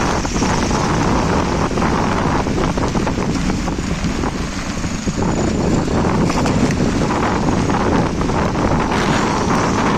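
Off-road 4x4 vehicle running, heavily masked by wind buffeting the microphone, as a loud, steady rush with no clear engine note.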